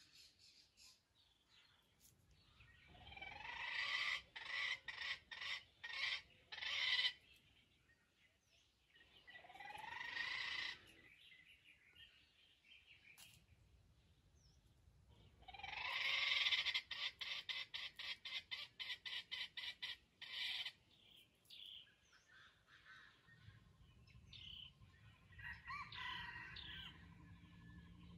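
Wild junglefowl (jungle chicken) calling loudly three times. Each call opens with a rising note and breaks into a run of quick stuttering pulses. The longest call comes about two thirds of the way through.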